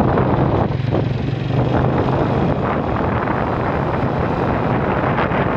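Motorcycle engine running steadily while riding, with heavy wind rushing over the microphone; the engine's low hum drops back a little about halfway through.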